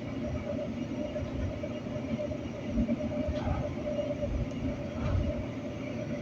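Light-rail train running, heard from inside the car: a steady low rumble with a constant humming tone, and two louder low thumps, a little under three seconds in and again about five seconds in.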